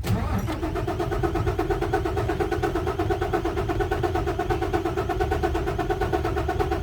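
Isuzu 6WF1 diesel engine cranking on its starter motor: a steady starter whine with rapid, even compression pulses, never catching. A hard-start fault, which the owner puts down to the PCV valve.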